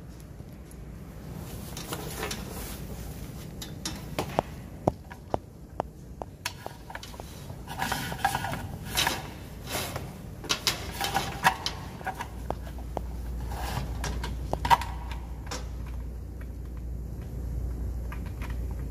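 Gloved hands handling a CCTV cable connector and a plastic waterproof junction box: scattered small clicks, taps and rustles, busiest around the middle. A low steady rumble comes in about two thirds of the way through.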